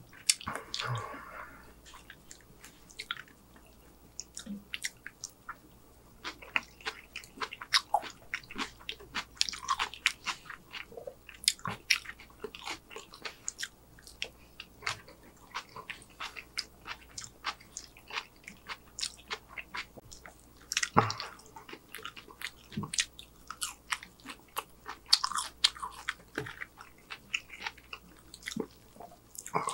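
Close-miked eating of a fried chicken meal: a steady run of short, sharp wet clicks and crunches of biting and chewing.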